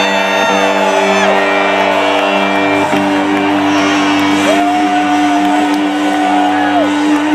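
Loud live rock music from an amplified band playing sustained chords and a long held note, with the crowd whooping.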